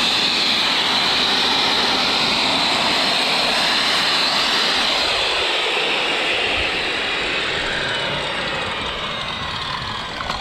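Bosch corded circular saw running with no load, its blade spinning free so the saw's exhaust blows sawdust off the shingles. It runs at a steady pitch, then begins to wind down near the end, its note falling.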